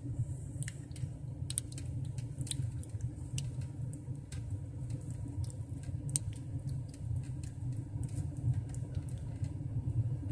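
Steady low rumble of a car idling, heard from inside the cabin, with scattered light clicks and ticks throughout.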